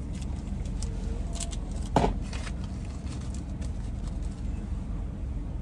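Car engine idling with a steady low rumble heard from inside the cabin, and a single sharp thump about two seconds in.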